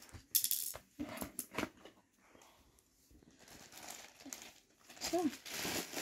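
Clear acrylic enclosure panels being handled and set down on a plastic tray: sharp plastic clicks, taps and sliding rustles, the loudest just under half a second in. About five seconds in there is a short pitched vocal sound that rises and falls.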